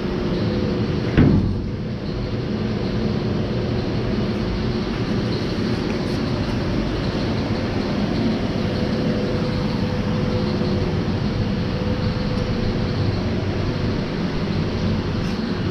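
Steady mechanical hum and rumble with a faint steady tone, and a single sharp knock about a second in.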